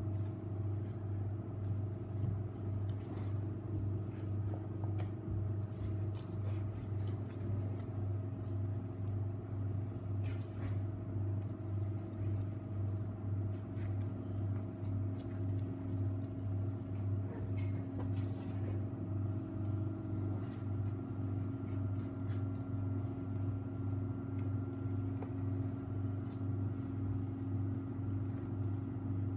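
Steady low hum of processing-room machinery, pulsing slightly, with a few faint clicks over it.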